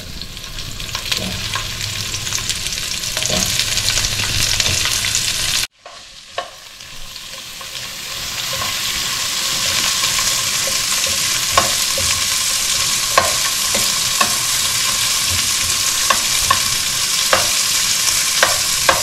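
Asparagus spears sizzling in olive oil in a hot frying pan, with short sharp clicks of metal tongs against the pan as the spears are turned. The sizzle breaks off about six seconds in, then builds back up.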